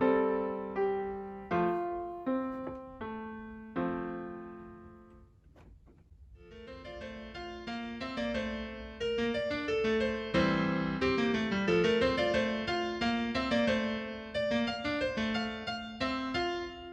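Background piano music: a few slow notes ring and die away to a near pause about five seconds in, then a quicker, fuller passage follows.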